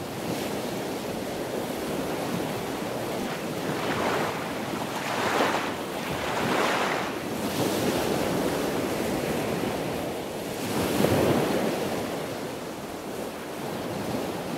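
Ocean surf on a sandy beach: a continuous hiss of waves washing ashore, swelling louder as breakers crash about four seconds in, twice more in the middle, and again about eleven seconds in.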